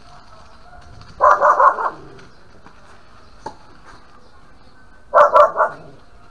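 A dog barking in two quick runs of three or four barks, one about a second in and one near the end. Between them comes a single faint sharp knock, likely a racket hitting a tennis ball.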